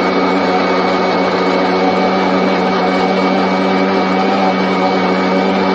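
A Rallison electric mixer grinder running steadily at full speed, its motor giving a loud, even drone as it grinds peeled mango pulp in its steel jar into a smooth, thick paste.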